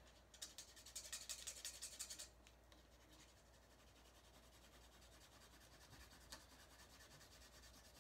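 Faint scratching at a scratch-off card: quick strokes for about two seconds, then fainter scratching.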